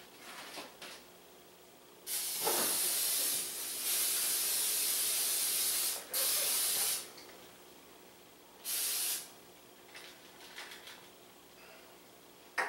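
Aerosol spray can hissing onto an air fryer basket in several bursts: one long spray of about four seconds, a second shorter one right after, and a brief one a couple of seconds later, with light handling clicks between.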